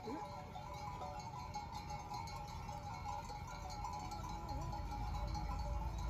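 Bells on a herd of goats and sheep clinking continuously as the animals walk, with a short rising bleat at the start and a wavering bleat about four seconds in.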